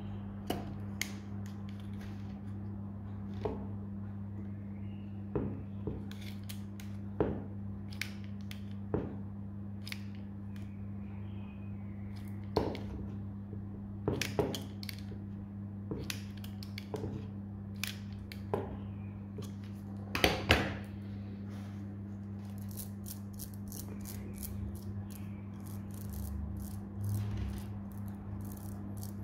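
Small clicks and knocks from handling a 3D-printed plastic wire race bearing and a steel digital caliper, over a steady low hum. Near the end comes a dense, fast ticking rattle of the bearing's steel balls rolling in their wire races as the rings are twisted by hand.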